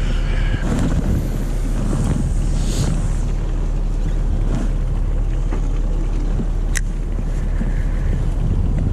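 Wind buffeting the microphone over the steady low rumble of a boat at sea, with a single sharp click about seven seconds in.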